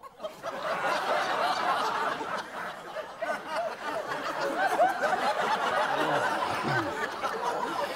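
Studio audience laughter that breaks out suddenly and carries on, many voices at once, peaking about five seconds in.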